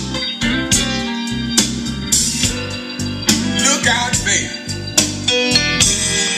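Guitar-led song with a steady drum beat, played through the original Chevrolet C10 AM radio rebuilt with modern AM/FM/USB internals.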